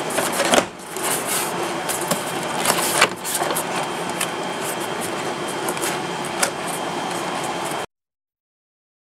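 Plastic door-trim panel and its clips clicking and snapping as the panel is pressed by hand onto a BMW car door, over a steady background noise. It cuts off suddenly near the end.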